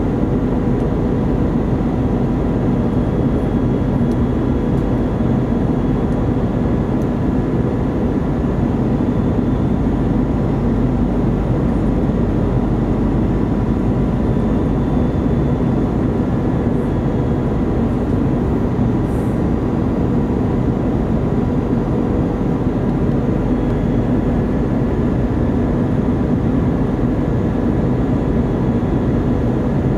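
Airbus A319 cabin noise on descent: a steady rush of jet engine and airflow, with an even hum under it.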